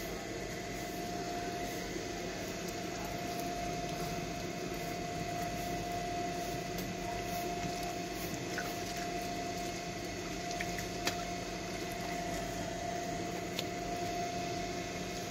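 Water running from a tank's tap and splashing onto a wet concrete floor and over hands and feet being washed, over a steady hum, with an occasional light click.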